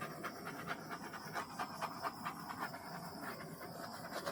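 Handheld torch flame running with a steady, breathy, fluttering rush.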